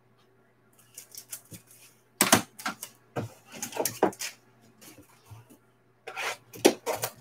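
Hard plastic graded-card slabs and card boxes handled on a table: an irregular run of clicks and clacks with some rustling, starting about a second in, loudest a little after two seconds and again near the end.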